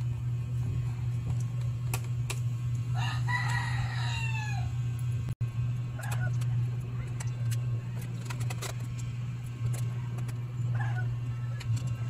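A rooster crows once, about three seconds in, a call of nearly two seconds that falls at the end, and two short, fainter calls follow later. Under it runs a steady low hum, with a few light clicks of small screws being handled.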